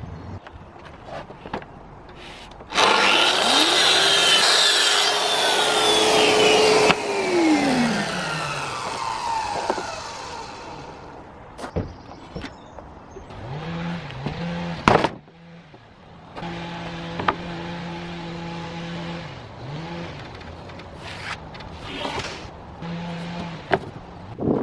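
A power tool's motor starts about three seconds in, runs loud and high for about four seconds, then winds down slowly. Later a lower, steady motor hum runs for several seconds, stopping briefly a few times. A single sharp knock comes in between.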